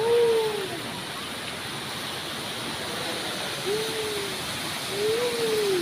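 Waterfall rushing steadily, with three short calls that rise and fall in pitch: one at the start, one near four seconds and one near five seconds.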